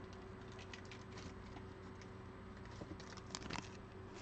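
Faint rustling and light clicks of trading cards and pack wrappers being handled, with a few sharper clicks a little past three seconds in, over a steady low electrical hum.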